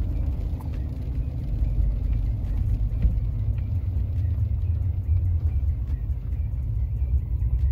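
Steady low road and engine rumble heard inside the cabin of a truck driving on rain-wet streets.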